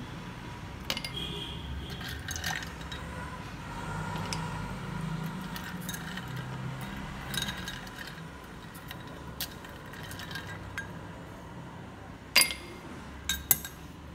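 Ice cubes dropped from tongs into a glass tumbler, clinking against the glass. The clinks come scattered every second or two, the loudest near the end.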